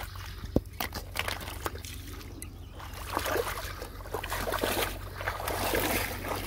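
Water sloshing and trickling. There are scattered short clicks in the first seconds, and the splashing grows busier and louder from about halfway through.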